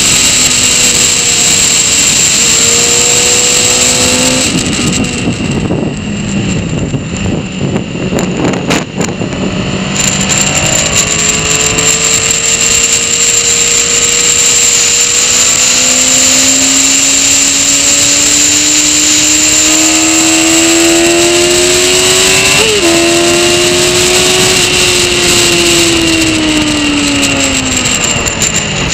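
Honda CBR sport bike's engine at track speed, heard from an onboard camera with wind rushing over it. The engine rises and falls in pitch with gear changes, goes softer for several seconds from about 5 s in as the rider eases off for a corner, then pulls in one long rising note before dropping near the end.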